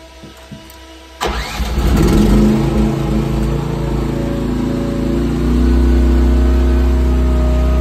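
Gasoline engine of a cheap Chinese 1-ton mini excavator coming up to speed suddenly about a second in, then running steadily at high revs.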